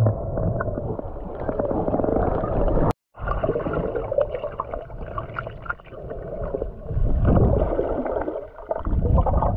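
Muffled underwater water noise picked up by a submerged camera while snorkeling: sloshing and gurgling with low rumbling surges. The sound cuts out completely for a moment about three seconds in.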